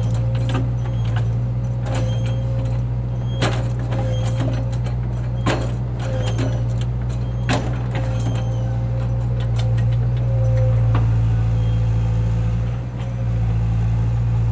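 A heavy machine's engine running steadily, with sharp metallic clanks and clinks every second or so through the first eleven seconds. The engine sound dips briefly near the end.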